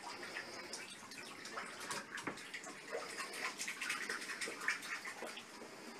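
Water splashing in small, irregular splashes.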